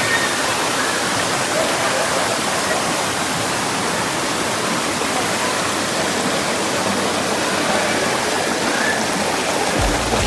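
Waterfall rushing: a steady, loud wash of falling water, with faint voices in it.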